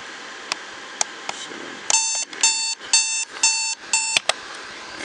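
Advance 3139 electronic alarm clock going off: five quick, harsh beeps about two a second, cut short by a click as its button is pressed to silence it. A few light plastic button clicks come before the alarm.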